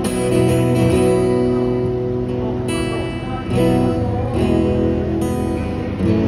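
Acoustic guitar strumming chords that ring on between strokes, an instrumental passage with no singing.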